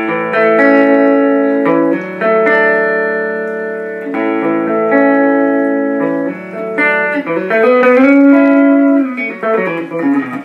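Alvarez Dana II electric guitar played clean on one coil of its Triforce triplebucker pickup alone, a bright single-coil tone like a Strat neck pickup, through a small 10-inch-speaker 1981 Peavey Backstage amp: ringing chords and picked notes, with a note bent up and back down in pitch about eight seconds in.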